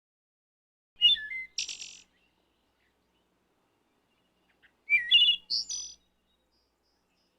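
Wood thrush singing two phrases about four seconds apart. Each is a few clear fluty notes ending in a higher, buzzy trill.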